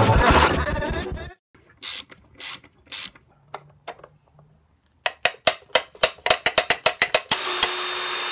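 Socket ratchet wrench clicking rapidly, about six clicks a second, as a bolt is tightened. Near the end a cordless drill starts and runs steadily, boring into a wooden skateboard deck.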